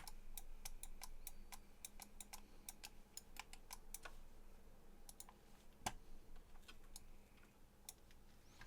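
Faint, irregular clicking of a computer keyboard and mouse, quick runs of clicks in the first four seconds and one louder click near six seconds.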